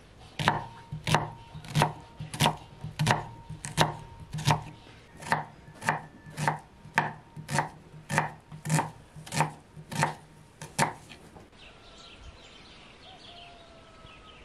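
Kitchen knife chopping an onion on a thick wooden log-slice cutting board: about seventeen steady, even cuts, roughly one and a half a second, each blade striking the wood. The chopping stops about eleven seconds in.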